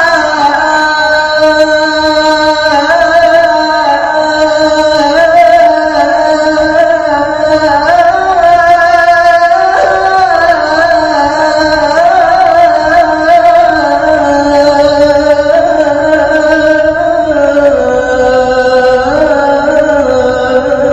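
A male muezzin chanting the adhan, drawing out one long unbroken ornamented phrase that steps and wavers in pitch.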